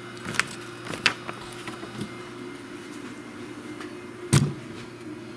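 A paper sheet carrying a flat copper-wire coil being handled, rustling in a few short bursts, the loudest about four seconds in, over a steady low hum.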